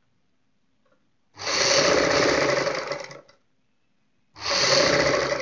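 Sewing machine stitching a lace trim onto fabric, running fast in two spells: one of about two seconds starting about a second and a half in, then a shorter one near the end after a brief stop.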